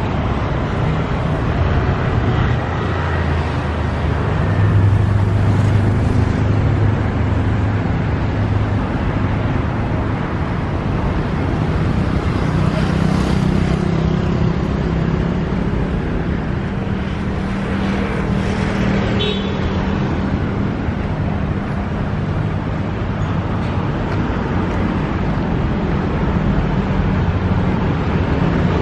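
Road traffic on a busy city street: a steady rumble of car engines and tyres, with vehicles passing close and swelling and fading several times.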